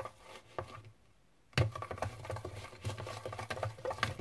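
A thin stick stirring glue slime in a plastic tub, making quick, irregular clicks and knocks against the tub with low thuds, and a short pause about a second in. The slime is being mixed with contact lens solution as it starts to activate.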